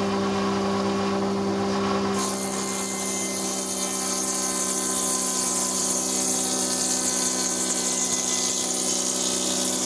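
Multi-function woodworking table saw machine running with a steady motor hum. About two seconds in, its blade starts cutting into a thick timber door-frame beam as the beam is fed across, adding a steady high cutting noise over the hum.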